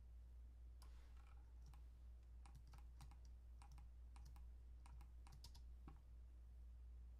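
Faint clicks of computer keys being pressed, a quick irregular run of about fifteen taps between about one and six seconds in, over a low steady hum.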